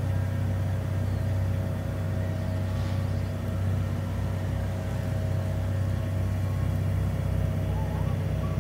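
Cruise boat's engine running steadily underway, a constant low hum. A few faint bird calls come in near the end.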